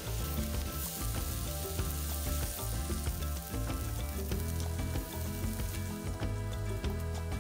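Diced onion, carrot and raw rice frying in olive oil in a nonstick pan, sizzling steadily, with a silicone spatula scraping across the pan as it is stirred. Soft background music with low notes runs underneath.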